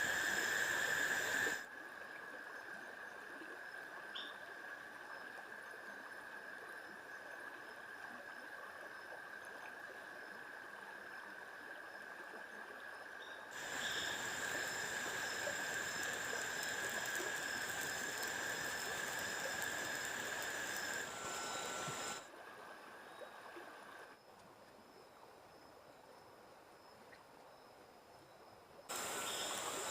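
Jungle ambience: a steady high-pitched drone over an even, stream-like hiss, its level jumping up and down abruptly several times.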